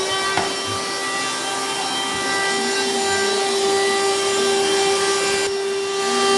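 Cordless handheld vacuum cleaner running steadily, its motor giving an even high-pitched whine.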